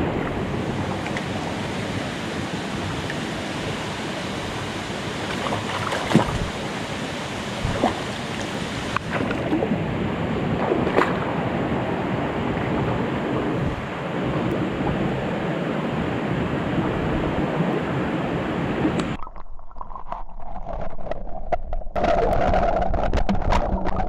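Rushing river water, a steady loud rush with a few sharp knocks or splashes along the way. About 19 s in it changes abruptly to a duller, more uneven sound.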